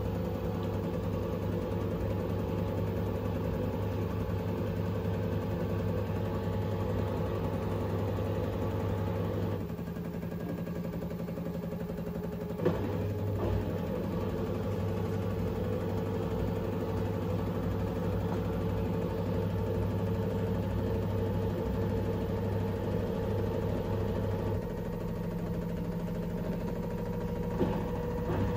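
LG 7 kg front-loading washing machine on an intermediate spin with a slightly unbalanced load: a steady motor hum and drum rumble. The low hum drops away for a few seconds about a third of the way in and comes back with a short knock. It eases again near the end, where there is another knock.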